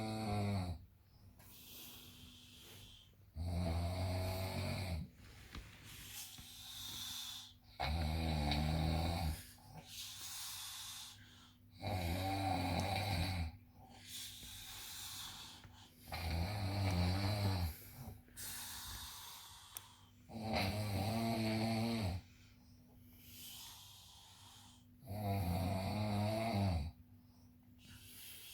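A person snoring: six loud snores come about every four seconds, each lasting about a second and a half, with quieter breaths between them.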